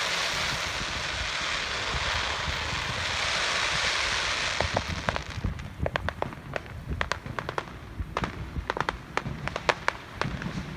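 Fireworks crackling: a dense hiss of crackle for the first few seconds, then thinning out into scattered sharp pops and snaps from about halfway through.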